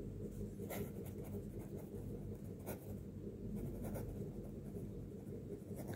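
Pen scratching on paper as a word is handwritten, faint strokes coming and going, over a low steady hum.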